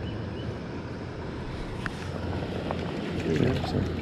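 Steady low rumble of wind buffeting the microphone, with a light click about two seconds in and a voice speaking briefly about three seconds in.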